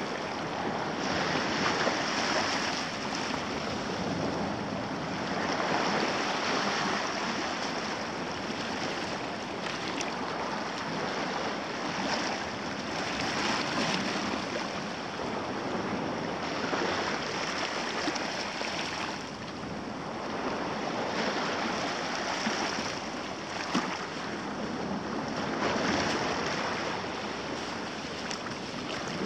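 Small sea waves lapping and washing against rocks and the shore, swelling and easing every three to four seconds.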